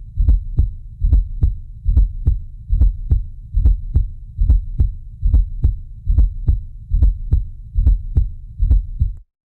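Stethoscope recording of a heartbeat with a fourth heart sound (S4 gallop): a soft extra thud comes just before each lub-dub, over a low steady rumble. The beat repeats a little over once a second and cuts off abruptly near the end. An S4 is the sign of a stiff left ventricle.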